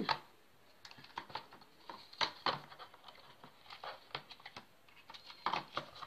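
Irregular light plastic clicks and taps as the brush roll is fitted back into the floor head of a Shark Lift-Away vacuum cleaner, the vacuum switched off.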